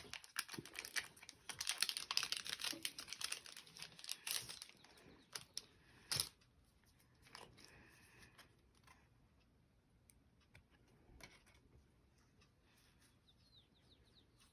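Foil Pokémon booster pack wrapper crinkling and tearing open for the first few seconds. After that come one sharp click and faint scattered ticks of cards being handled.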